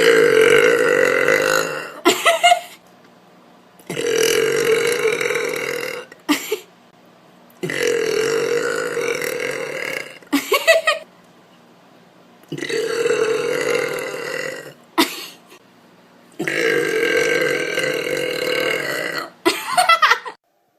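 A woman burping loudly five times in a row. Each burp is long and drawn out, two to three seconds, and each is followed by a short, sharp sound.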